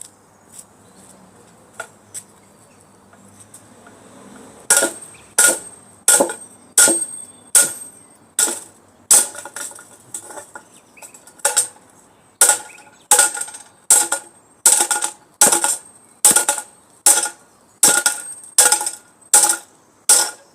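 Repeated blows on an old metal fire guard to bash its feet off: a steady run of sharp, ringing metallic strikes, about three every two seconds, starting roughly four and a half seconds in.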